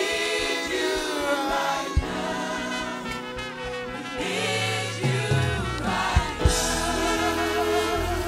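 Gospel worship music: voices singing sustained lines over keyboard and band, with bass and drum hits coming in about five seconds in.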